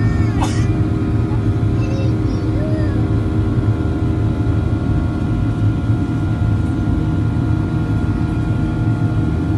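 Steady cabin noise of a Boeing 737-800 climbing after takeoff, its CFM56 turbofan engines running as a low rumble with steady tones over it, heard from a window seat beside the wing.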